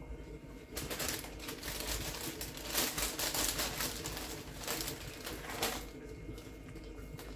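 Crinkling and rustling of plastic packaging, with many small crackles, as fresh spinach is taken out. It starts about a second in and stops near the end.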